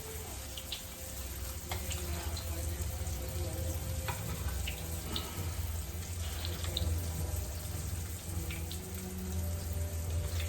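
Wrapped plantain-and-jackfruit turon frying in hot oil in a pan: a steady sizzle broken by scattered sharp pops and crackles, over a low steady hum.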